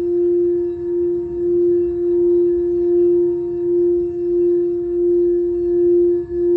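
Singing bowl sounding a steady, sustained tone with a few fainter overtones above it, wavering slowly in loudness.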